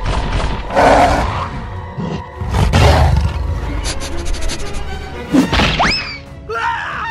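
Background music with added cartoon sound effects: several sudden thuds and crashes, and a quick rising whistle near the end.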